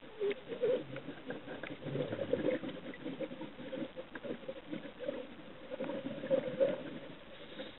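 Underwater crackling and gurgling picked up through a camera housing on a reef dive: a dense, steady mass of small ticks and bubbling that fades near the end.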